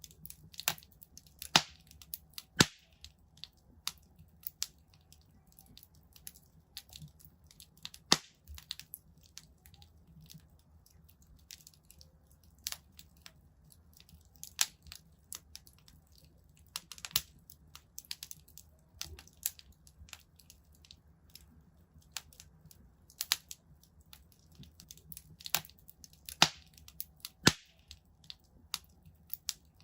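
Wood fire crackling in a fireplace: irregular sharp pops and snaps over a low, steady rumble of the flames, with the loudest pops coming a few seconds in, about eight seconds in, and several more in the second half.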